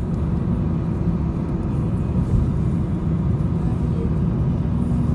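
Steady low rumble of tyre, road and engine noise inside a moving car's cabin.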